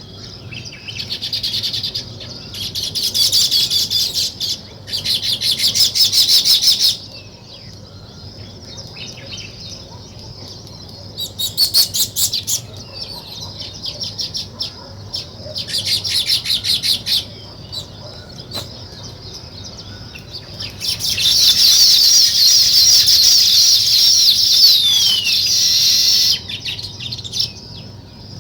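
Small songbirds chirping and chattering in fast runs of high notes. The runs come in bouts of a second or two, with softer chirps between them, and one longer bout of about five seconds comes after the middle.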